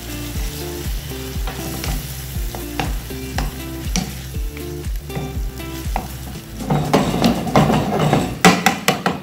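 A wooden spoon stirring thick tomato-and-sausage sauce as it sizzles in a frying pan. The stirring gets louder and busier over the last couple of seconds.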